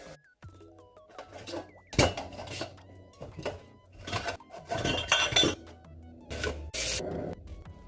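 Dishes and cutlery clattering and clinking as they are handled and put away, with a sharp clank about two seconds in and further bursts of clatter through the middle and near the end.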